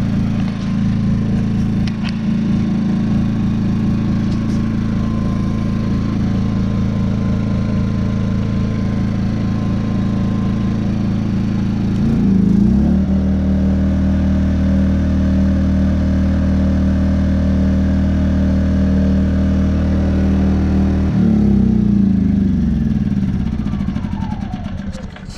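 Predator 2000 inverter generator's small single-cylinder engine running smoothly after a repair of its whistling fault. It runs steadily, revs up about halfway through, holds the higher speed, then drops back down and dies away near the end.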